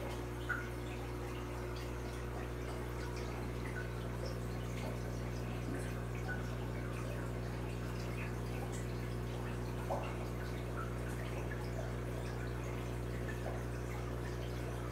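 Aquarium air stones bubbling, with small drips and plops, over the steady low hum of the tank's air pump.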